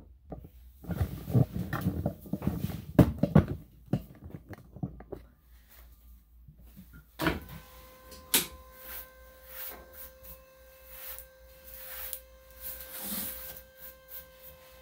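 Knocks, bumps and rustling in the first few seconds as a freshly bathed dog is handled and moved about. From about seven seconds a faint steady electrical hum with several tones sets in, with scattered light clicks over it.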